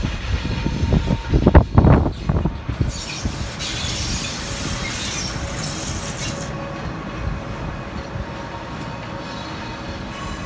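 Train wheels knocking heavily over rail joints for the first two seconds. Then wheels squealing high for about three seconds, settling into the steady rumble of an SJ Rc6 electric locomotive-hauled train rolling slowly on depot track.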